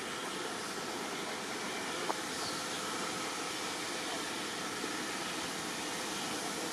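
Diesel multiple unit standing at the platform with its engine idling, a steady noise with a faint constant hum. A single sharp click comes about two seconds in.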